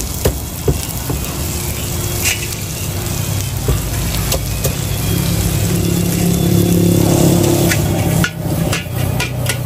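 Cleaver chopping fried fritters on a cutting board: scattered knocks, coming quicker near the end, over a steady low hum and the sizzle of frying.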